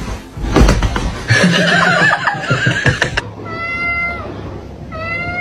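Cat meowing twice: one held meow, then a second that rises slightly. Before them, a loud stretch of rustling and knocks.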